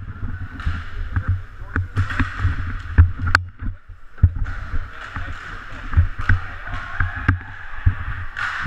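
Inline hockey play heard from the bench boards: repeated deep thumps and knocks on the boards and a few sharp stick clacks, over the echoing din of the rink hall.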